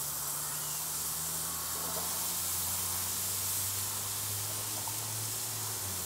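Steady hiss and sizzle of buttered hamburger-bun halves toasting on a hot wood-fired smoker grill grate, with a low steady hum underneath.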